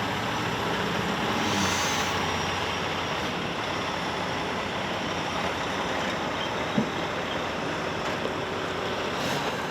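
Semi truck engine running amid busy road traffic, a steady rushing noise, with a low engine hum that fades after the first couple of seconds and a single sharp click about seven seconds in.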